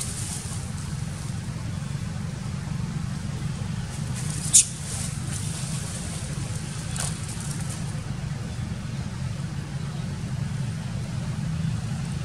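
Steady low background rumble, with one sharp crackle about four and a half seconds in and a fainter one near seven seconds.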